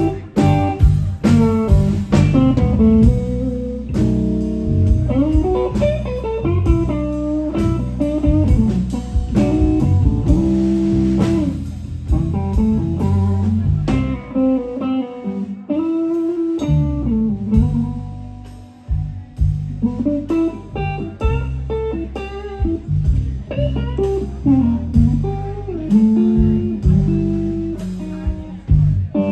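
Live blues band playing an instrumental passage: a Telecaster-style electric guitar takes the lead with bent, gliding notes over a rhythm section with drums and cymbals.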